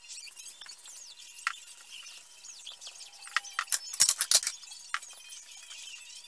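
Ceramic mugs and dishes clinking and knocking as they are picked up and restacked on a cabinet shelf, with scattered single clinks and a quick burst of clinks about four seconds in.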